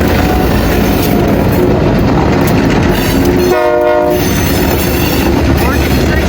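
Freight train rolling past with a loud, steady rumble of locomotive and wheels, and a short horn blast about three and a half seconds in.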